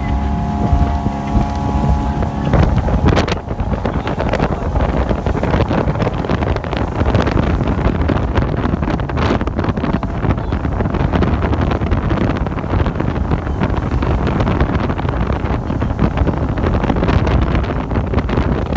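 Bayliner Capri runabout's 3.0 L MerCruiser sterndrive running at speed, its steady engine tone plain for the first two or three seconds. After that, wind buffeting the microphone and rushing water, with many small knocks, cover the engine.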